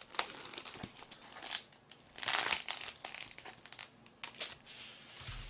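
Plastic takeout food containers and wrapping being handled and moved: crinkling with scattered light clicks and knocks, loudest a little past two seconds in.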